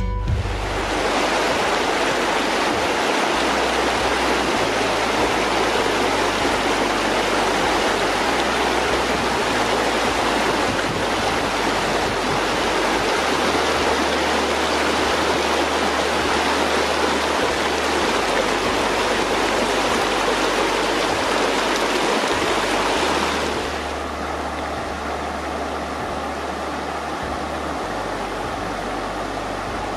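Shallow river rushing over rocks in riffles and rapids, a steady even rush of water. About three-quarters of the way through it drops to a somewhat quieter, softer flow.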